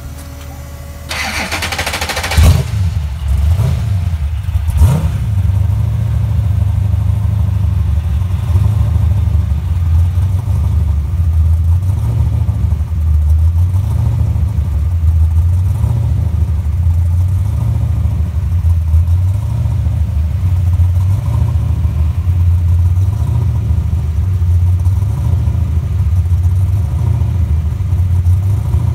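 Mustang race car's engine being started: the starter cranks for about a second and a half, the engine catches with a sharp bang, gives a brief rev a couple of seconds later, then settles into a steady, low idle.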